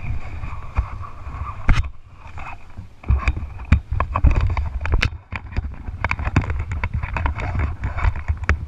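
Wind buffeting the microphone of a paraglider pilot's camera, with a steady low rumble, broken by many short clicks and rustles from the harness, lines and footsteps through grass.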